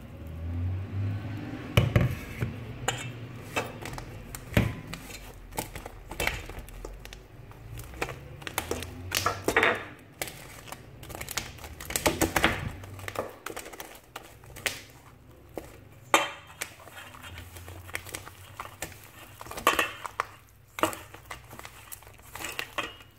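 Metal spoon stirring flour and a wet milk-and-yogurt mixture into dough in a stainless steel bowl, clinking and scraping against the bowl's side in irregular knocks.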